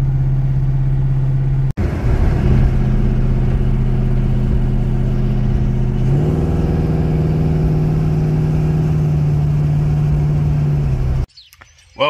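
1973 Ford Torino's engine running at road speed, heard from inside the car: a steady engine drone that steps up in pitch about halfway through and holds there. It cuts off suddenly near the end.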